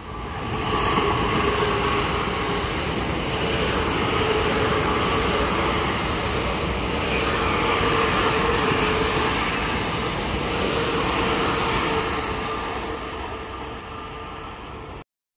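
Electric multiple-unit passenger train running past the platform at speed: a loud, steady rumble of wheels on rail with a steady tone over it. It fades as the train draws away, then cuts off suddenly near the end.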